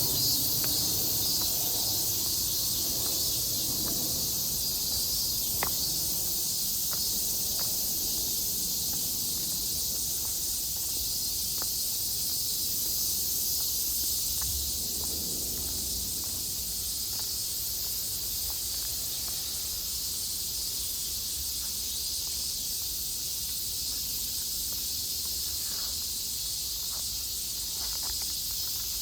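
A dense, steady chorus of many cicadas calling at once, an unbroken high-pitched drone.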